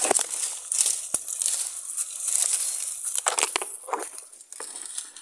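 Dry, leafless branches and twigs scraping and crackling against the body and arm of someone pushing through thick scrub on foot, with dry leaves and brush crunching, and a sharp snap about a second in.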